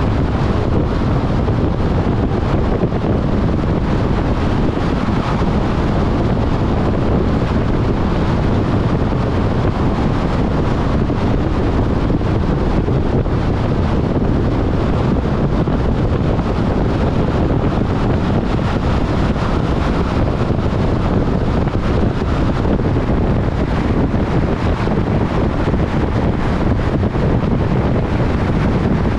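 Steady wind and road noise of a car driving.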